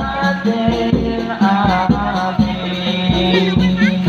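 Kuda lumping accompaniment music: a steady beat of drum strokes, about three a second, under a held, pitched melody line and a steady low drone.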